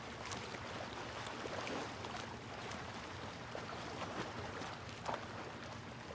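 Faint, steady water ambience: a soft hiss with scattered small ticks.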